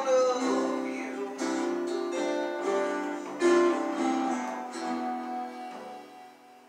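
Acoustic guitar being played, picked notes and chords ringing in turn, then growing quieter and dying away near the end.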